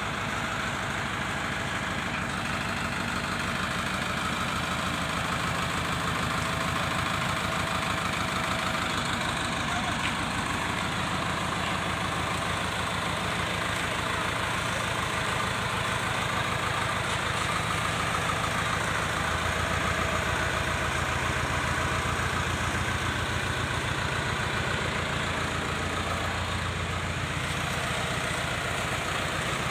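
Diesel engine of an Escorts Hydra 14 mobile crane running steadily with a fast, even low throb while the crane carries a suspended fuel tank. The engine gets a little louder about two-thirds of the way through.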